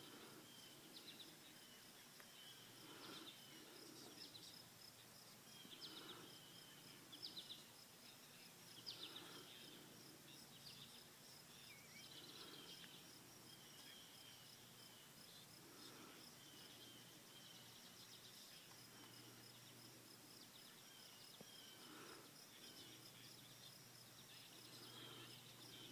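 Faint outdoor ambience: a steady high insect drone with short bird chirps and soft calls repeating every few seconds.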